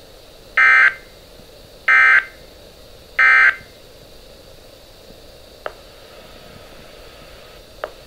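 Three short, identical buzzy digital data bursts, about a second and a quarter apart, from a Midland weather radio's speaker: the SAME end-of-message code that closes a weather radio alert broadcast. After them comes steady faint hiss with two small clicks.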